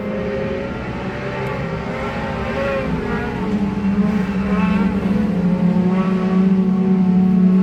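Several sport compact dirt-track race cars running together, with overlapping engine notes rising and falling in pitch as they rev. The sound grows louder over the last few seconds.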